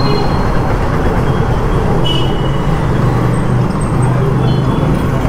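Royal Enfield Bullet 350's single-cylinder engine running steadily under way, with road noise from the traffic around it.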